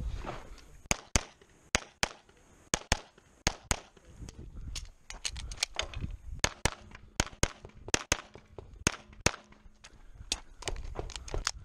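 CZ SP-01 Shadow Target 9mm pistol firing a rapid stage string: many sharp shots, mostly in quick pairs a fraction of a second apart, with short pauses between pairs.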